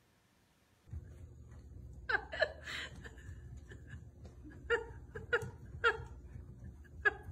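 A person laughing in a string of short, high-pitched bursts, the loudest about two seconds in and again around five and seven seconds in, over a low steady room hum that starts about a second in.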